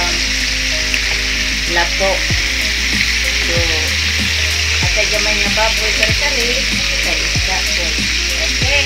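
Fish steaks frying in hot oil in a wok, sizzling steadily, with a spatula scraping and stirring as the pieces are turned about halfway through.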